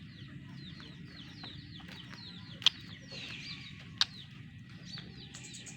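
Birds chirping: a run of short, falling chirps, a few each second, with two sharp clicks about midway and a brief hiss just after the first click.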